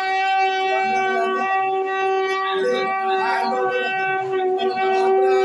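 Conch shell (shankha) blown in one long, unwavering note. A few voices are heard faintly underneath about midway.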